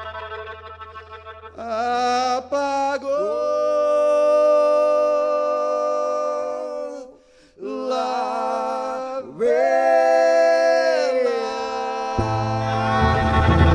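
Live band music: long held melody notes that slide into pitch, with a brief break in the middle, over a fading keyboard tone; low bass notes come in near the end.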